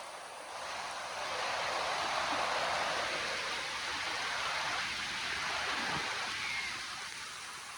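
Rain falling, a steady hiss that swells heavier about a second in and eases back near the end.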